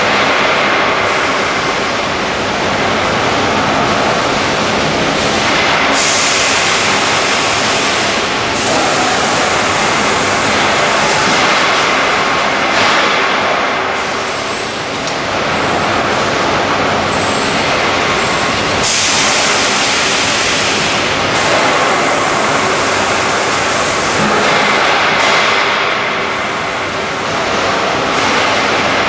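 Automatic steel strapping machine running with a loud, continuous mechanical noise, broken by several stretches of hissing two to three seconds long that start and stop sharply.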